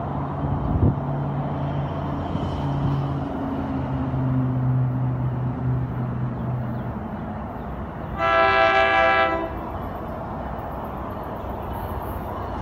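Tri-Rail commuter train approaching, its horn sounding one blast of about a second and a half roughly eight seconds in, over the train's steady low hum. A single sharp thump about a second in.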